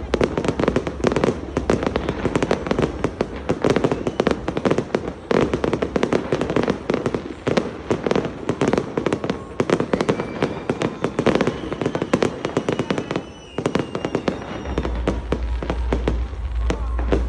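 Fireworks exploding overhead in a dense run of rapid bangs and crackles, with a brief lull about thirteen seconds in. A steady low rumble joins near the end.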